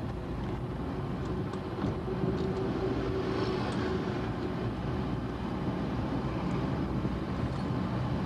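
Motor vehicle running steadily: a continuous low engine rumble and road noise, with a humming tone that is strongest a few seconds in.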